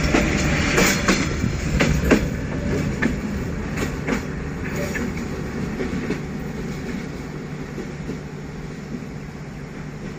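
Passenger train coaches rolling past on the track, their wheels clicking over the rail joints. The clicks thin out and the rumble fades as the train pulls away.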